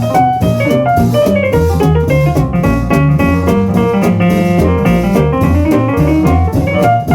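Swing jazz music with piano and a steady drum beat over a stepping bass line.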